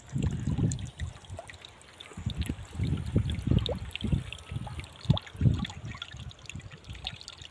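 Thin stream of water pouring from a spout at the base of a plastic drum and splashing into a shallow muddy channel, with an uneven, irregular sound and a brief lull about two seconds in.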